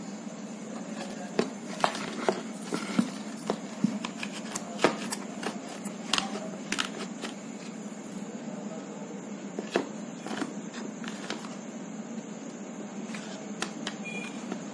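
Electric egg boiler's stainless steel bowl and plastic base being handled and fitted back together: scattered light clicks and knocks, mostly in the first half, over a steady low hum.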